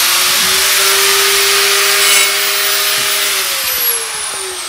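Angle grinder running at full speed with a high whine and a loud rushing noise, then switched off and spinning down, its whine falling from about three seconds in.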